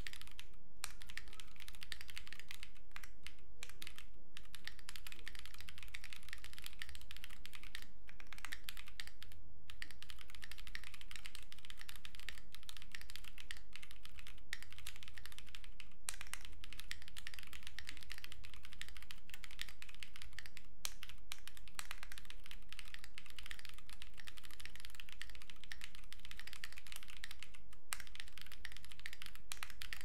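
Continuous typing on a Thera 75 mechanical keyboard built plateless, with Rebult Harimau switches, PBT keycaps, and PCB and case foam: a dense, steady run of keystrokes with a few brief pauses.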